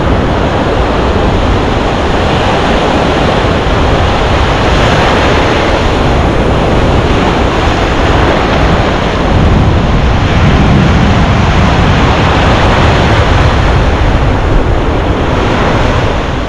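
Wind buffeting the microphone over the wash of breaking surf, a loud steady noise heaviest in the low end.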